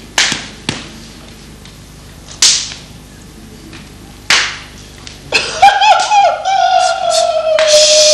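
Sharp slapping hits of boxing-glove punches, four of them spaced unevenly over the first half. From about five seconds in, a long high held note wavers at first and then holds steady, with a brighter sound joining near the end.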